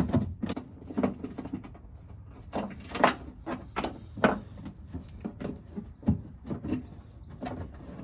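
Plastic access cover in a pickup truck's bed wall being worked loose and handled, giving an irregular run of clicks and knocks.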